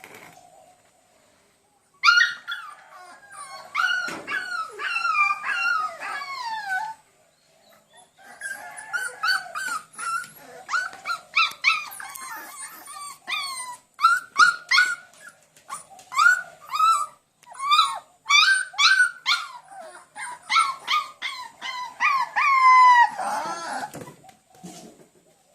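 A dog howling and whining: a long wavering call over a few seconds, then a run of many short whimpering calls that slide down in pitch.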